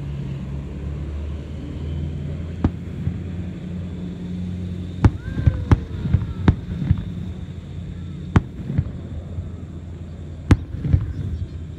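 Distant aerial fireworks shells bursting: about ten sharp bangs, most of them close together between five and seven seconds in, over a steady low hum.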